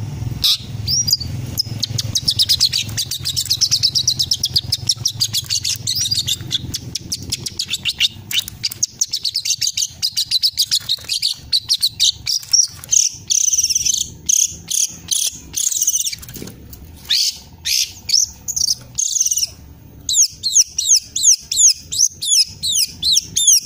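Young long-tailed shrike singing a varied, fast mimicking song: a rapid insect-like trill at first, then a long run of short sharp notes, and near the end a quick series of repeated swept whistles. It is a juvenile bird practising the material it learned from master recordings.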